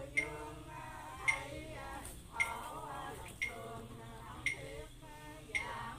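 Chant-like singing voices, with a sharp knock struck evenly about once a second beating time.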